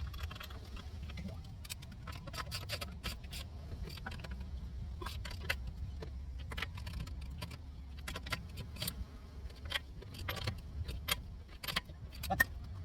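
Nissan Sentra engine idling with a steady low hum, over which come many irregular sharp clicks and clinks.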